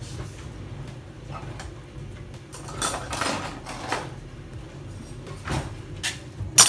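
Kitchen handling sounds: a stretch of scraping and rummaging, then a few light knocks and one sharp clack near the end.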